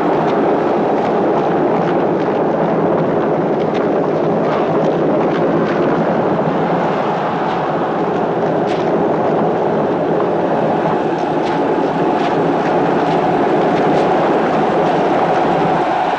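Chariot race: teams of horses galloping and chariot wheels rumbling together in a loud, continuous din, with faint scattered clatters through it.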